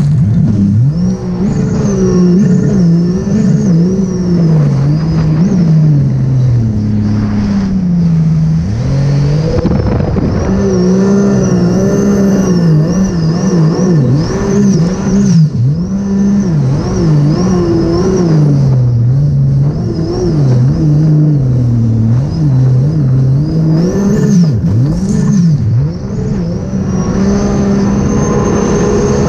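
A 2018 Sea-Doo RXP-X 300 personal watercraft at speed: its supercharged three-cylinder Rotax engine, fitted with a Riva Racing Stage 2 kit and free-flow exhaust. The revs rise and fall again and again, with a thin high whine that follows the engine note.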